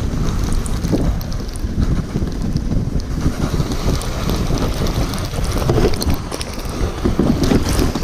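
Wind buffeting an action-camera microphone during a fast sled descent, with the steady hiss and scrape of the sled's runners over packed snow and scattered small knocks from bumps.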